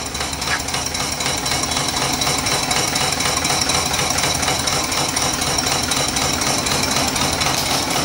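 Small homebuilt single-cylinder steam engine (1.87-inch bore, 2-inch stroke) running steadily on steam from its vertical fire-tube boiler, a rapid, even knocking with a steady hiss of steam.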